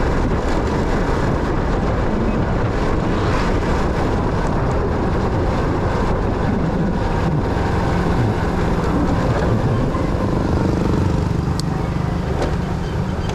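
Motorcycle on the move: engine running under a steady rush of wind and road noise.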